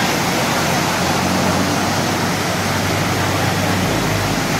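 A BMTA city bus driving through floodwater, its wheels throwing up a steady rushing spray over the low hum of its engine.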